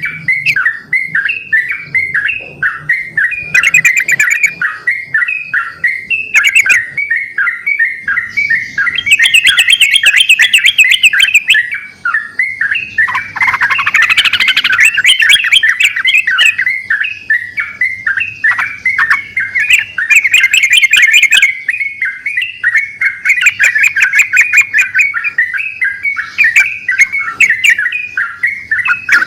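Several yellow-vented bulbuls (trucukan) singing at once, their fast, bubbly chirping phrases overlapping and answering each other without a break.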